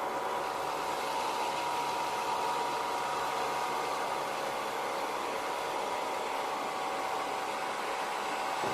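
Homemade vacuum cleaner's motor and fan running steadily: a rushing hiss with a constant whine.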